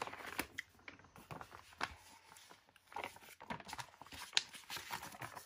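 Paper sticker sheets being handled over magazine pages: faint, irregular rustling with small taps and crinkles.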